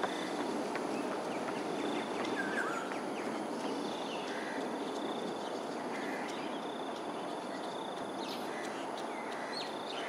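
Evening outdoor ambience: a steady low background rumble, with scattered short bird calls and a high, steady tone that comes and goes several times.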